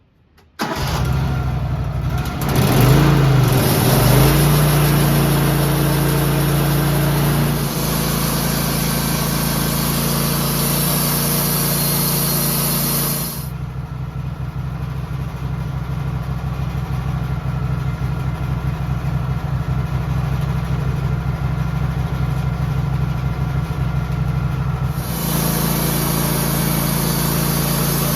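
Wood-Mizer LT15 portable sawmill's engine starting about half a second in, revving briefly, then running steadily. A high hiss over the engine drops out around the middle and comes back near the end.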